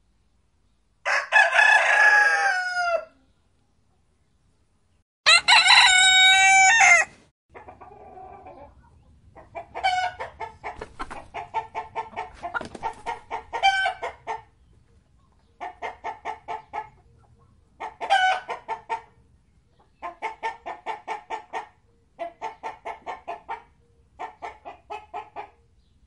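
A rooster crows twice, each crow about two seconds long. Chickens then cluck in short bursts of quick repeated notes that recur every couple of seconds.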